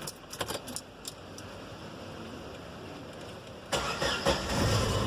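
A few light clicks, then, nearly four seconds in, the Chevrolet Zafira's 2.0 eight-valve engine cranks on the starter, catches and keeps running.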